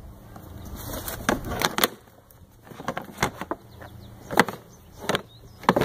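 Scattered plastic clicks and knocks, about half a dozen sharp taps, as a grass-catcher bag is handled and hooked onto the rear of a lawn mower.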